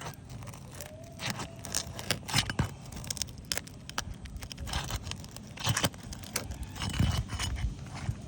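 Asphalt roof shingles being lifted and worked loose with roofing tools: irregular scrapes, crinkles and sharp knocks.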